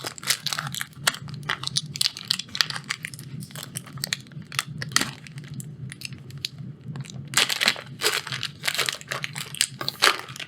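Plastic foil wrapper of a trading-card booster pack being torn open and crumpled: a dense run of irregular crinkles and crackles, loudest and thickest about three-quarters of the way through.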